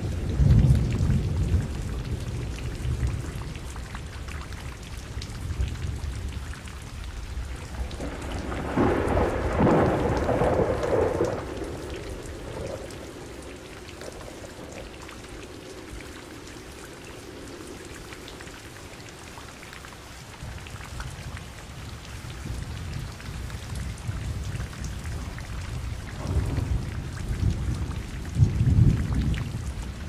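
Steady rain with thunder. A loud rolling peal comes about nine seconds in and lasts a few seconds, and lower rumbles come near the start and again near the end.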